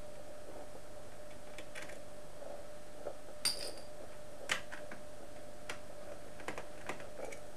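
Scattered small metallic clicks and taps from a screwdriver and screws being handled on an LCD monitor's sheet-metal chassis, the loudest a short ringing tap about three and a half seconds in. A thin steady tone runs underneath.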